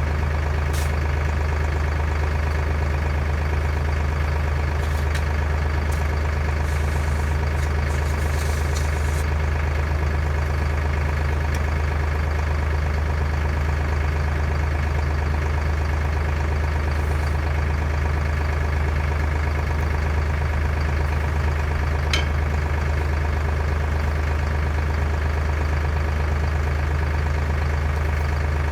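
An engine idling steadily, a low even drone that never changes speed, with a single faint tick about 22 seconds in.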